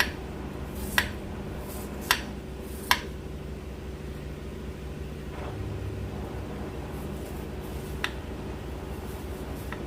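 Knife slicing through water chestnuts and tapping the cutting board: four sharp taps about a second apart, then a pause and two more near the end, over a steady low hum.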